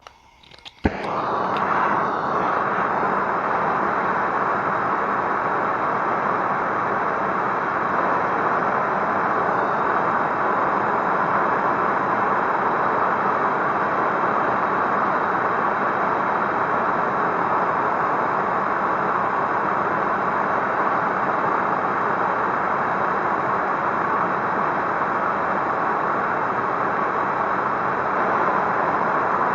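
Handheld gas torch lit with a sharp click about a second in, then burning with a loud, steady rush of flame, heating the driveshaft's U-joint yoke to melt out the injected nylon retainers; it cuts off suddenly near the end.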